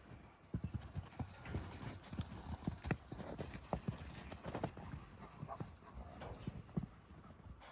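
Horse's hooves striking the ground in an irregular run of dull thuds, several a second and uneven in loudness, as the horse moves around its handler.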